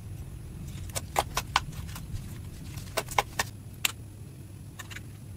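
Close-up handling of slime and makeup: sharp clicks and pops, a few in quick runs of three or four and then single ones, over a low steady hum.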